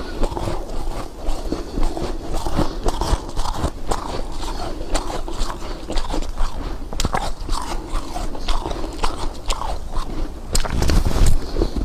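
Snow or ice being bitten and chewed close to the microphone: a run of irregular crunches and crackles. A louder low rumble comes near the end.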